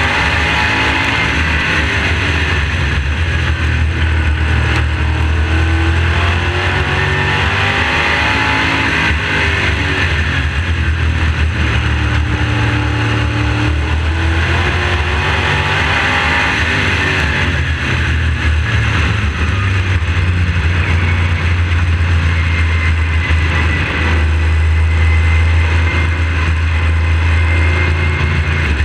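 A dirt-track modified race car's V8 engine running at racing speed, heard from close behind the engine. The engine note rises and falls repeatedly as the car accelerates and lifts around the oval, with a steady hiss of wind and track noise over it.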